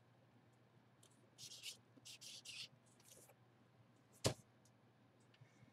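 Faint rustling and scraping of packaging being handled, in three short bursts, then a single sharp click about four seconds in.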